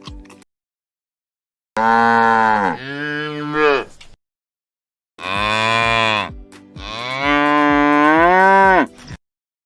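Cow mooing: long, loud moos separated by silence, the pitch sliding down and back up within each call.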